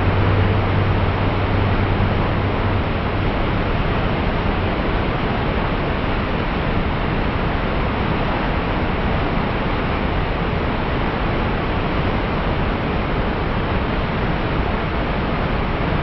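Wide waterfall spilling over a ledge into a churning pool of white water: a loud, steady rush of falling water.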